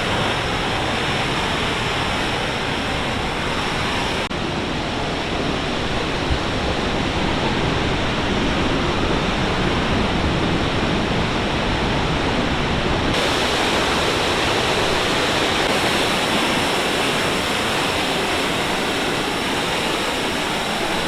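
Sunwapta Falls rushing: a loud, steady wash of falling water that changes tone abruptly twice, about four and thirteen seconds in.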